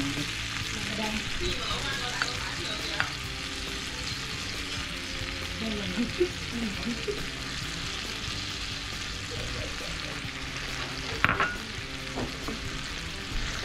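A tomato and onion mixture sizzling in a hot frying pan with a steady hiss, stirred with a silicone spatula. A single sharp knock comes about eleven seconds in.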